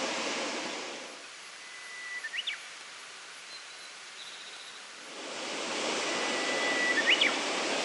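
A songbird singing twice, each phrase a long held whistle ending in a quick up-and-down flourish, the second about four seconds after the first. Under it runs a rushing outdoor noise that fades after the first second and swells again about five seconds in.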